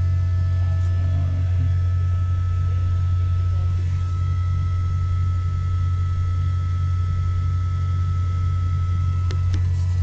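Steady low drone of running machinery, with faint steady high-pitched whines above it and two light clicks near the end.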